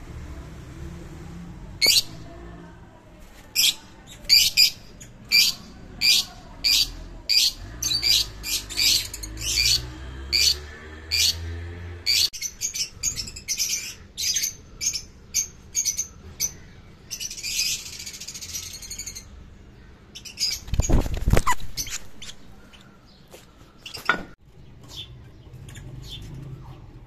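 Fischer's lovebirds calling: a long run of short, shrill chirps, several a second, with a brief low rumble about two-thirds of the way through and a few more chirps after it.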